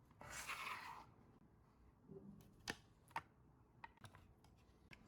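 Faint handling of a small plastic smart lamp socket: a brief soft rustle, then a few light, separate clicks.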